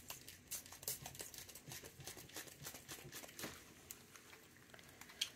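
Faint clicks, taps and rustles of a small plastic trigger-spray bottle being handled while its spray head is cleared and taken off.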